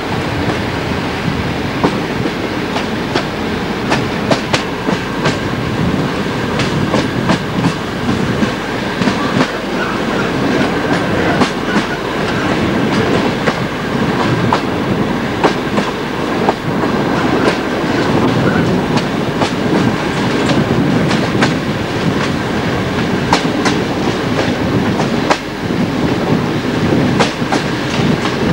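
Passenger train running along the line, heard from inside a coach: a steady rumble of the wheels with irregular clickety-clack over the rail joints.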